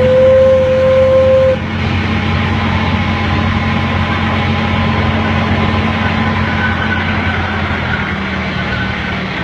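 Park ride train sounding one steady toot, lasting about a second and a half, then running along with a steady rumble.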